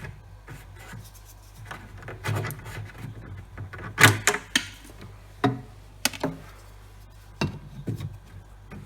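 Plastic canister-filter fittings being handled and pushed together, the double power head going onto the output extender: scattered knocks, clicks and rubbing, the loudest about four seconds in.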